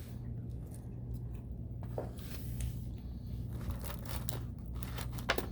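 Quiet eating sounds at a table: scattered small clicks, scrapes and crinkles of food and cutlery over a steady low hum.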